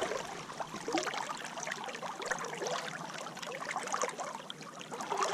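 River water flowing and babbling, an uneven rush with small splashy crackles.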